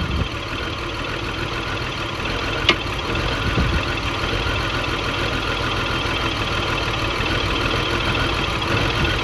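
2002 BMW X5 3.0's inline-six engine idling with a multiple misfire, while fuel pressure reads low (about 41–44 psi against the 50 it should hold), which the owner takes for a failing fuel pump. A single short click sounds under three seconds in.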